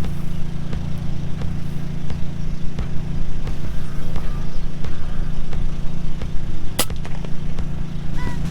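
One sharp crack of an FX Impact M3 PCP air rifle firing a slug, about seven seconds in, over a steady low drone.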